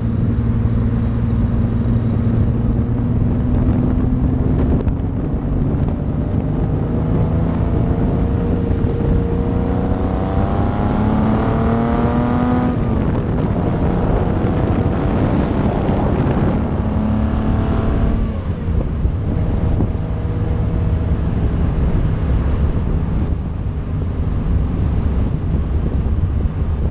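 Kit car's engine and exhaust, heard from a camera at the rear beside the rear tyre. The note is steady at first, then rises as the car pulls away. It drops at a gear change about thirteen seconds in and rises again in the next gear. After about eighteen seconds it settles into a steady cruise under a constant low road rumble.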